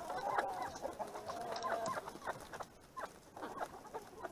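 A flock of roosters and hens clucking, with many short calls overlapping.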